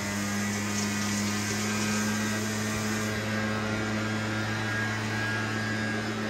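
Leaf blower engine running steadily, a continuous machine drone.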